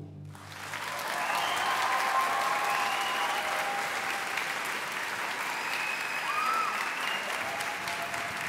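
Concert audience applauding as the orchestra's final chord dies away. The applause builds within the first second and then runs steadily, with a few voices calling out over it.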